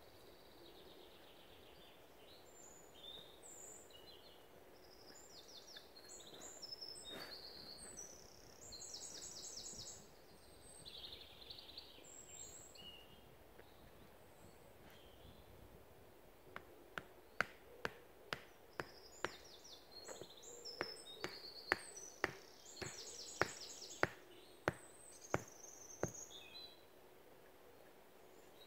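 Woodland birds singing, with high chirps and trills. In the second half, a run of about fifteen sharp knocks comes over some ten seconds; these are the loudest sounds.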